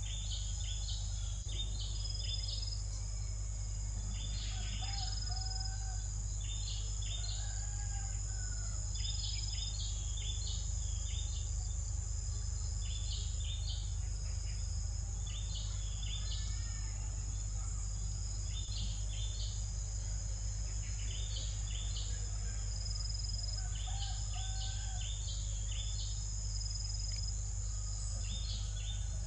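Steady high-pitched insect drone, with clusters of short high chirps repeating every second or two and a few brief warbled bird calls, over a constant low hum.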